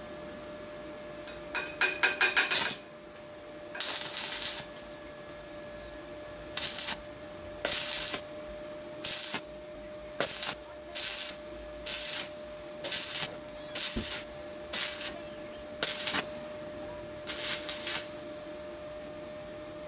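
Stick-welding arc from a Flameweld MTA1650 multiprocess welder, with a 2.5 mm rod at about 78 amps on thin exhaust pipe steel, crackling in about a dozen short bursts roughly a second apart as the arc is struck and broken again and again. The first bursts, near the start, come as a quick string of strikes. A faint steady whine runs underneath.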